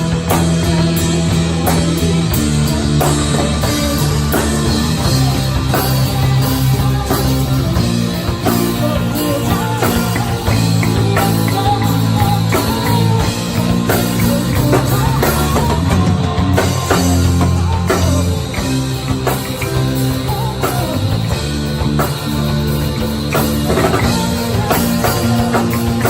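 A live rock band playing, with drum kit, electric guitar and bass notes changing every second or two.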